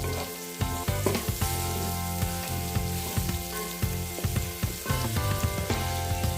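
A pot of matoke (green bananas and potatoes in a curry-spiced sauce) sizzling while a spoon stirs it, with frequent sharp clicks of the spoon against the pot.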